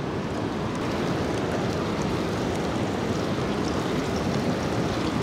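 Small chunks of flounder sizzling and crackling in hot oil in a cast iron skillet, over the steady rush of river rapids.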